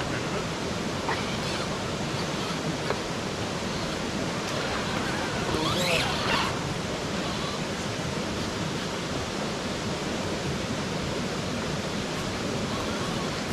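Steady rushing of flowing stream water. About halfway through, a brief louder sound with a changing pitch rises above it.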